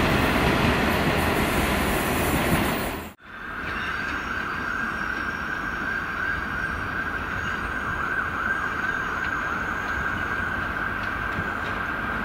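Freight wagons rolling past close by with a loud, steady rumble of wheels on rail, cut off abruptly about three seconds in. A distant Class 43 HST power car approaching follows, with a lower, steady rumble and one steady high whine.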